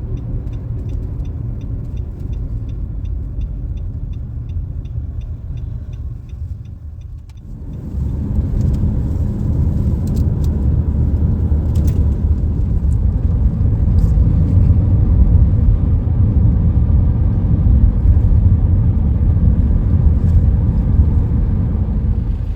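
Car driving, heard from inside the cabin: a steady low road and engine rumble. A regular ticking of about two to three ticks a second runs through the first several seconds. About seven seconds in, the rumble briefly drops, then comes back louder and rougher.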